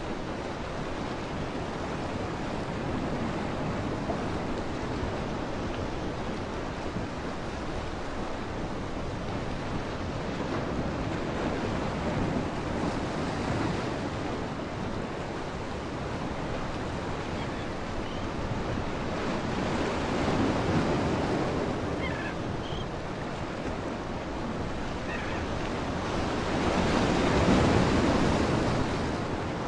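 Steady rushing noise of wind and water, swelling louder about two-thirds of the way in and again near the end.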